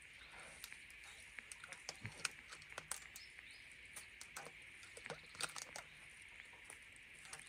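Faint scattered clicks and rustles of fishing line being pulled in by hand and wound onto a plastic bottle handline, over a steady high background hiss.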